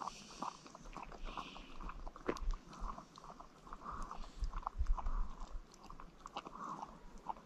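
Kangal shepherd dog lapping and licking egg whites from a dish: soft, irregular wet licks and smacks.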